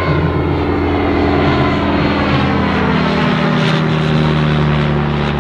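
Single-engine light propeller aircraft flying past with its engine running steadily; the engine note falls slightly in pitch a few seconds in.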